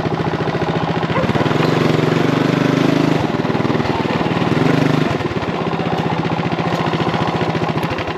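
Small single-cylinder minibike engine running close by with a fast, even putter. It gets louder twice, about two seconds in and again around five seconds, then settles back.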